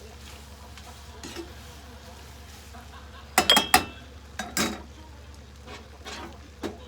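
A cooking utensil stirring in a pan and clinking against it: a quick run of sharp metallic clinks about three and a half seconds in, then a few softer knocks.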